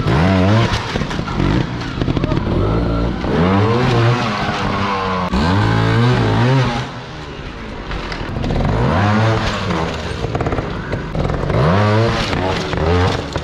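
Trials motorcycle engines revved in short, sharp blips, the pitch rising and dropping back several times as the bikes are hopped up rock ledges.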